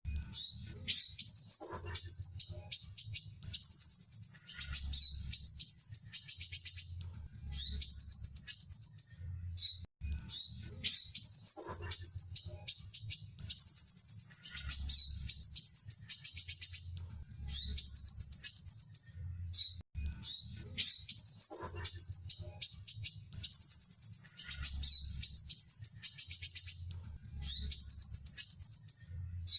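Sunbird singing: a high-pitched, rapid chattering song in phrases of one to two seconds with short gaps between them, the same run of phrases coming round again about every ten seconds.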